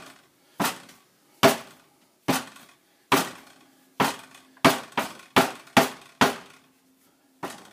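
About eleven sharp knocks on hard kitchenware while bread dough is being shaped. Each has a short ringing tail. They come about once a second at first, then quicken to two or three a second about halfway through.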